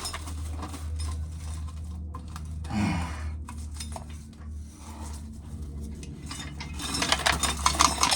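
Corn sheller stripping an ear of dry corn, the kernels clattering and clinking over a steady low hum, with a dense run of rattling clicks near the end.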